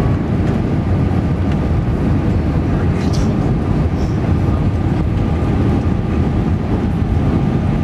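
Airliner cabin noise during the descent to land: a steady low rumble of jet engines and airflow, with a faint steady whine on top.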